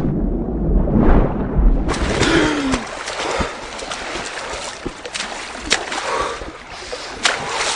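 A deep low boom in the first couple of seconds, then water splashing and sloshing with sharp clicks.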